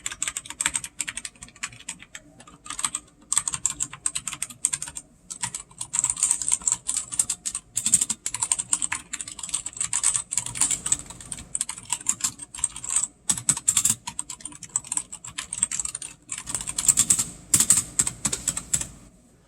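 Cougar Puri TKL mechanical keyboard with red linear switches being typed on: fast, continuous keystroke clacking with a few short pauses, stopping just before the end.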